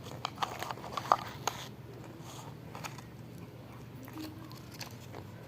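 A person eating Yum Yum instant noodles: a cluster of wet mouth clicks and smacks in the first second and a half, the loudest about a second in, then quieter chewing.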